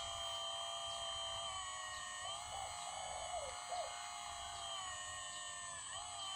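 Hydraulic pump of a radio-controlled Kobelco SK200 excavator model giving a steady, high, multi-toned whine as the boom and bucket move, its pitch dipping briefly near the end as the arm takes load.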